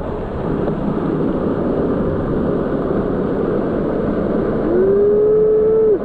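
Waterfall of many thin streams pouring off a rock face into a shallow pool, a steady rush of falling and splashing water heard from close by. Near the end a drawn-out voice rises in pitch and then holds for over a second.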